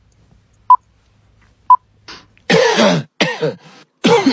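Two short, high electronic beeps a second apart, then a person coughing and clearing their throat loudly in several bursts.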